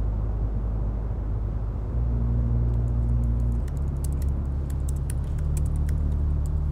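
Typing on a laptop keyboard: a quick, irregular run of key clicks starts about three seconds in. Underneath is a low steady drone whose pitch steps down a couple of times.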